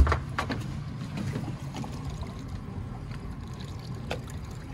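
Water sloshing against the side of a boat's hull, with wind rumbling on the microphone. A single sharp knock at the very start.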